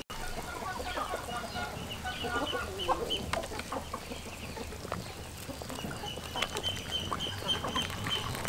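Chickens clucking, scattered short calls with a run of high, even-pitched calls in the second half.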